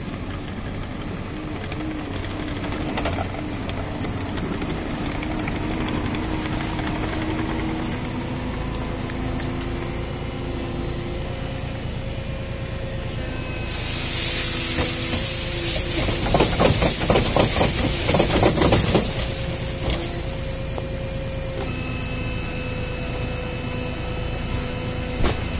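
Case TV380 compact track loader's diesel engine running, its pitch shifting as it works. About 14 seconds in a loud hiss starts and holds, and for a few seconds olives and leaves pour from the tipped canopy into a metal trailer with a dense rattling rush.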